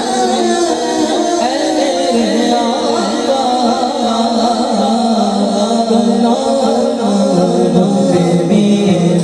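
Naat being sung: a melodic vocal line wavering over a steady held note beneath it, without a break.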